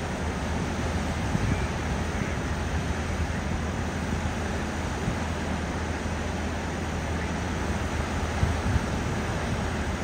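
River rapids rushing steadily over a ledge into a standing wave: a constant wash of whitewater noise with a deep rumble underneath.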